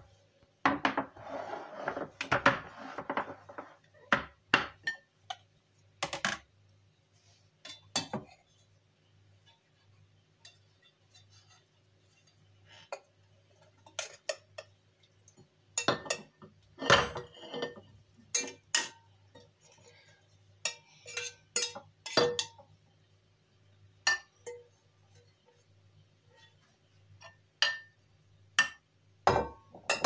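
Glass food-storage containers and their plastic snap-lock lids knocking and clinking against each other and the countertop, a scattering of sharp knocks with a denser scraping, rustling stretch in the first few seconds. Partway through there is a run of knocks as food is tipped from a ceramic dish into a glass container.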